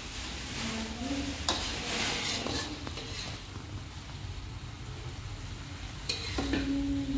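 Metal spatula scraping against a metal wok while scooping stir-fried long beans and tempeh out into a bowl, with two sharp clinks of metal, one about a second and a half in and one near the end.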